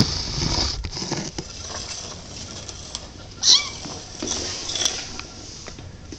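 Tiny kitten meowing: one short, high cry with a bending pitch about three and a half seconds in, the loudest sound here. Before it, in the first second or so, there is rustling and pattering noise.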